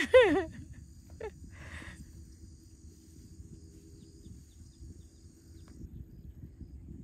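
A loud, wavering animal call right at the start, its pitch quavering and falling over about half a second, then a fainter short call about a second in, over a steady low outdoor background.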